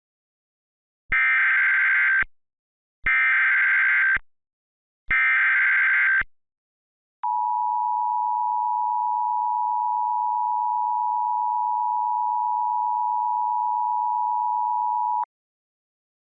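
Emergency Alert System header tones: three roughly one-second bursts of SAME digital data screech, a second apart, followed by the two-tone EAS attention signal, a steady dual tone held for about eight seconds before cutting off sharply.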